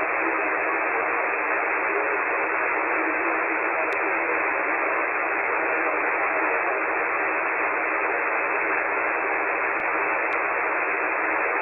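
Steady HF static and band noise on the 40-metre amateur band, heard through a KiwiSDR web receiver in lower sideband with no station on frequency. The hiss is confined to a narrow, telephone-like band by the receiver's filter, with a few faint clicks.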